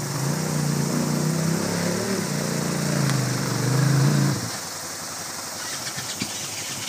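Dirt bike engine running at low revs as the bike is brought through a shallow stream, getting louder to a peak about four seconds in and then stopping abruptly. The stream's rushing water runs steadily underneath.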